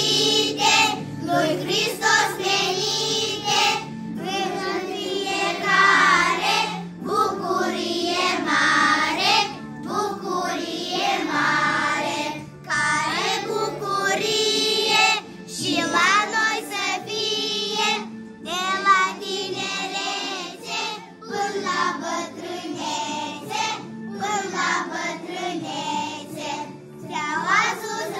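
A group of children singing a song together in chorus, with instrumental accompaniment underneath.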